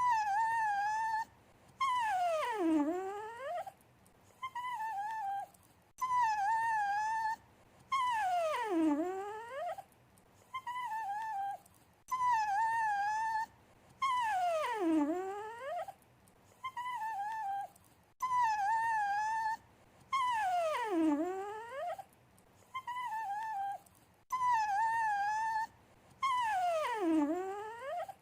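A dog whining in a repeating loop: two short, wavering whines followed by one long whine that slides down in pitch and turns up at the end, the cycle coming round about every six seconds. It is the pleading, attention-seeking whimper of a dog begging.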